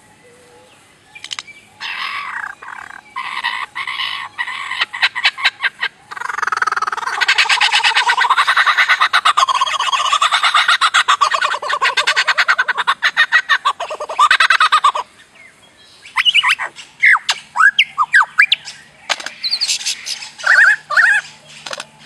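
Superb lyrebird mimicking a run of sounds. First come bursts of rapid clicks, then a long fast-pulsing rattling call lasting about nine seconds, then short whistled notes that sweep up and down.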